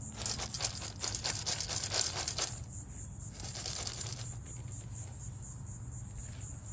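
Crickets chirring steadily, with bursts of crinkling and rustling, as of something being handled or torn, over the first two and a half seconds and again around the middle.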